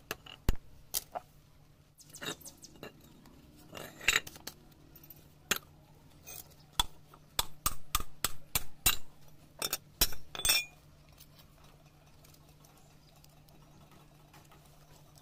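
Sharp metallic clicks and clinks of steel on steel as circlip pliers, a spring-steel circlip and a bearing and gear housing are handled on a steel plate. Scattered single clicks at first, a quick run of clinks in the middle, then it goes quiet near the end.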